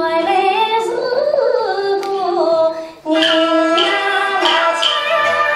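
A woman singing Yue opera in long held, wavering notes, with the opera band accompanying; the sung line breaks off briefly about three seconds in and then carries on.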